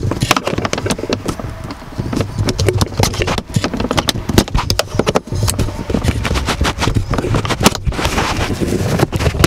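An orange plastic pry tool scraping and levering in the seam of a 2010 Mazda CX-7's plastic center-console trim. It makes a dense, uneven run of clicks, knocks and scrapes as the trim clips are worked loose.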